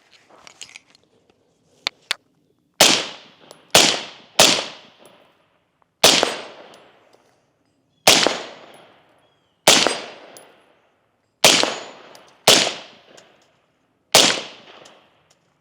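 Suppressed BRN-4 10.4-inch 5.56 AR-type rifle firing nine semi-automatic shots at an uneven pace, with up to about two seconds between shots. Each crack fades quickly. The rifle cycles every round with its heavy H3 buffer, as it runs reliably only when suppressed.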